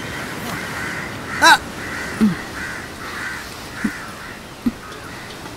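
Crows cawing: one loud caw about a second and a half in, then fainter calls repeating in the background.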